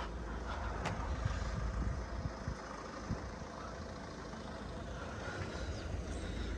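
Steady low engine rumble of a heavy vehicle, running evenly.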